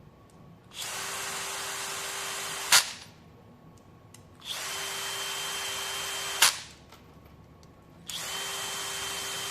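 Small power driver running in three spells of about two seconds each, driving screws into a carbon drone frame. The first two spells end in a sharp click as the screw seats.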